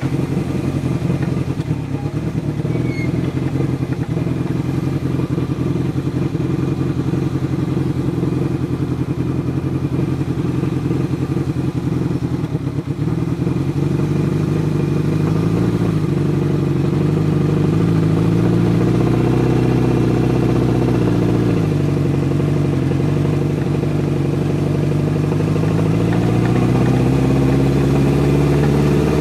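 Motorcycle engine heard from on the bike, running at low, steady revs for the first half, then revving up and down from about halfway in and climbing near the end as the bike pulls away.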